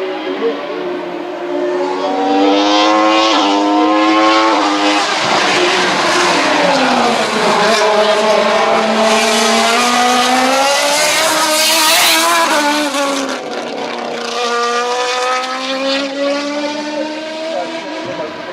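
Hill-climb BMW 320 race car's 3.5-litre, 570 hp engine at full throttle. Its pitch rises and drops through a series of gear changes. It is loudest about two-thirds of the way through, then eases off.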